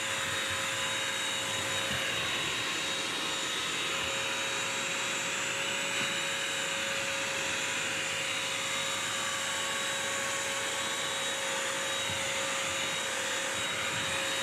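BISSELL Crosswave wet/dry vacuum running steadily, its motor giving an even whine while the brush roll spins and it sucks up a wet mess of applesauce and ice cream from a hardwood floor.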